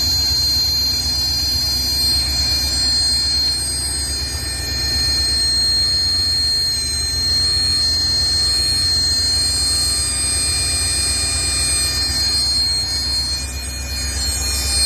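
Ford F250 engine running with a steady high-pitched squeal from under the hood, several thin tones held over a low engine rumble.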